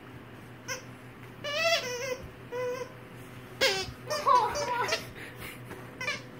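A young child's high-pitched squeals and giggles in short bursts, several times, falling in pitch, the loudest about three and a half to five seconds in.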